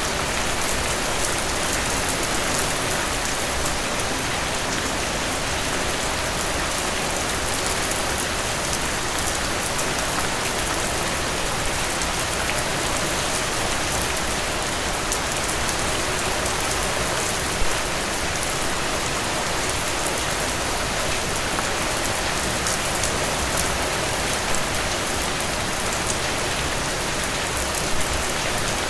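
Steady rainfall pattering on a surface, a dense even hiss with fine drop ticks throughout and an occasional slightly louder patter.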